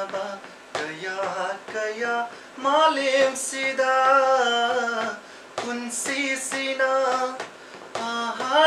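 A man singing a slow melody, holding long notes that slide up and down in pitch.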